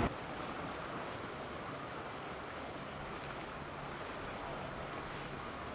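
Boat engine running steadily at low speed with a faint even hum, under a wash of water and wind noise.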